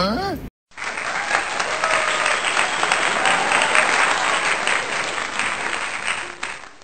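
Crowd applauding, a dense patter of many hands clapping that starts about a second in and cuts off abruptly at the end.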